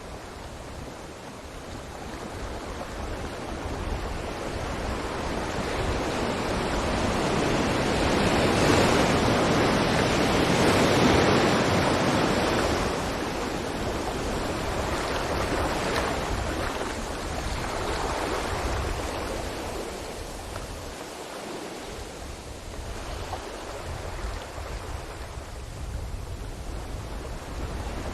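Ocean waves breaking and washing up on a beach: the surf swells to a peak about ten seconds in, then ebbs, with smaller surges after.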